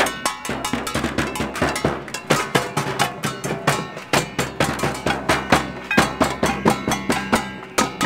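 Drums and ringing metal percussion beaten by hand in a fast, steady rhythm, several strikes a second, as a noise demonstration.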